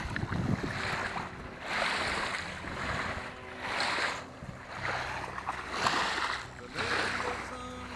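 Small waves washing on a sandy shore, swelling and fading about once a second, with wind on the microphone and a faint steady low hum underneath.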